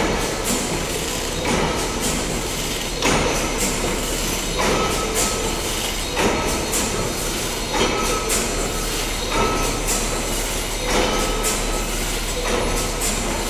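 Wire mesh weaving loom running, weaving 40-mesh stainless steel wire cloth: a steady mechanical clatter with a heavy knock about every one and a half seconds as the loom cycles.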